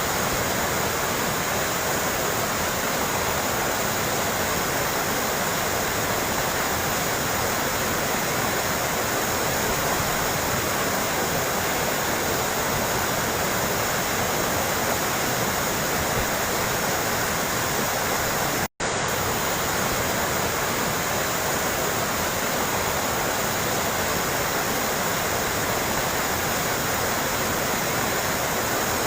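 Steady babbling, rushing water, an even continuous splashing with no bird calls in it. It cuts out for an instant about two-thirds of the way through, then carries on unchanged.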